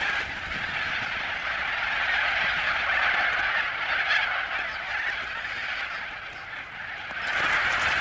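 A huge flock of little corellas calling all at once, a continuous dense din of overlapping calls; it eases a little about six seconds in and swells again near the end.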